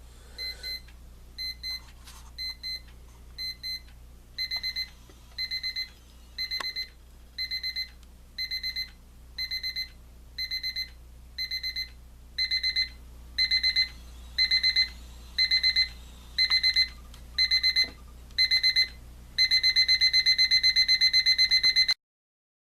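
Westclox quartz travel alarm clock's ascending alarm: high-pitched electronic beeping that starts as short beeps, then comes in bursts about once a second that grow steadily louder, and turns into continuous rapid beeping near the end before cutting off.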